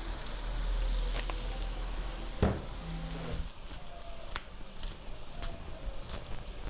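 Kitchen cooking sounds: food sizzling in a pan, with a knock about two and a half seconds in and a few light clicks of utensils.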